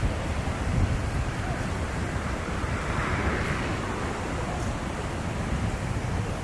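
Wind buffeting the microphone in heavy gusts over the steady wash of ocean surf, with a swell of hiss about three seconds in.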